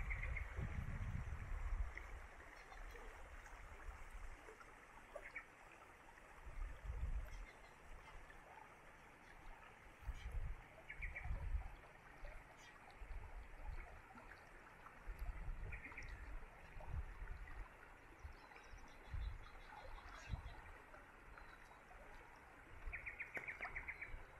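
Steady rush of the Jemez River, a shallow freestone trout stream, running over rocks. Uneven low rumbles of wind hitting the microphone come and go, and short, rapid chirping trills sound several times.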